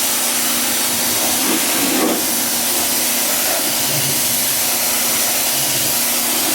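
Steady hiss of a water spray washing down a car's engine bay, running without a break.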